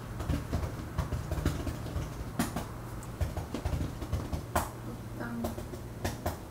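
Typing on a laptop keyboard: quick, irregular key clicks over a low steady hum.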